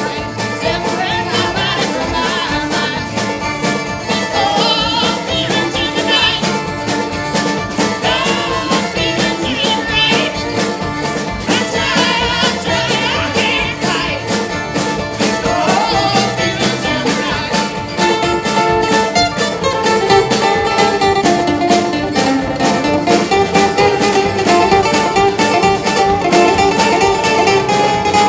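A live folk-rock band playing: a man singing over strummed acoustic and electric guitars with a steady quick beat. About two-thirds of the way through, the singing gives way to an instrumental passage with a guitar lead line.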